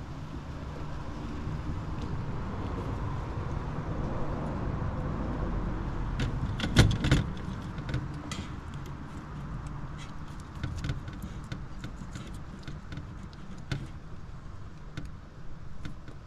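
Wires and white plastic plug connectors of a heater kit harness being handled, with a cluster of sharp clicks about halfway through and scattered light clicks and rattles after it. A low rumble swells and fades underneath.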